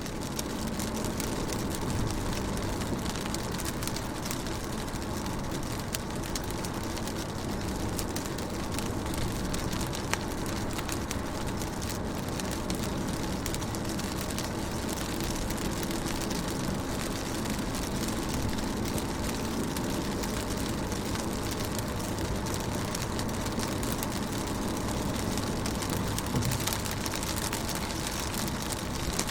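Raindrops hitting a car's windows from inside a moving car: many scattered sharp drop ticks over a steady low rumble of road and engine noise.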